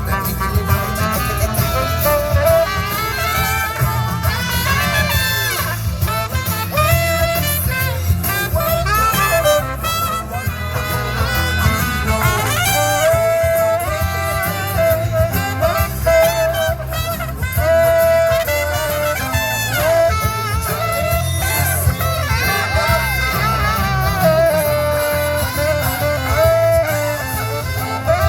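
Music playing continuously, with many held and moving notes over a steady low bass.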